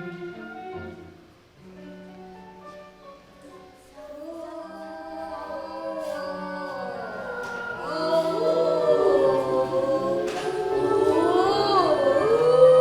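Music of held notes that builds louder from about four seconds in, turning into swooping, sliding pitches in the second half.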